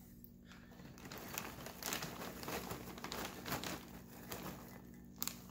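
Plastic popcorn bag crinkling as it is handled: a soft run of crackles that starts about a second in and dies away just before the end.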